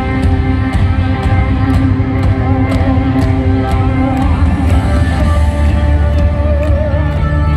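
Live rock band playing at concert volume, heard from the stands: a steady beat marked by cymbal hits about twice a second over heavy bass and sustained notes.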